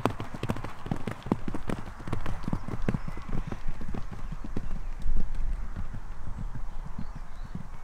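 Hoofbeats of a pony cantering on grass turf: a quick, uneven run of dull thuds that grows fainter toward the end as the pony moves away.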